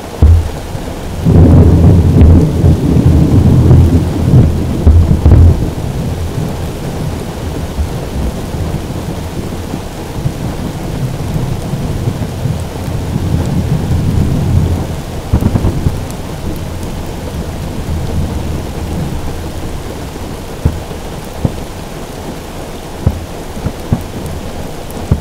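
Distant aerial firework shells bursting: a loud run of deep booms and crackling rumble starts about a second in and dies away over several seconds, another boom comes near the middle, and scattered sharp pops follow near the end. Rain patters steadily on the roof of the car throughout.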